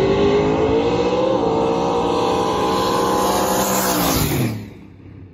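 Drag cars at full throttle approaching the finish line in a heads-up run. The engine note climbs, with a brief dip about a second in. About four seconds in they pass: the pitch drops and the sound fades quickly.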